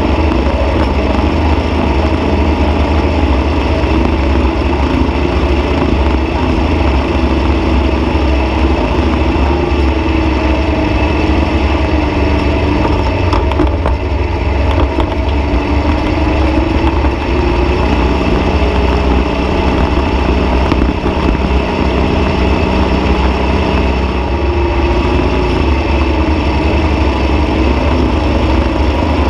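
Dune buggy engine running very loud and steady while driving over sand, its pitch rising and dipping slightly a couple of times with the throttle.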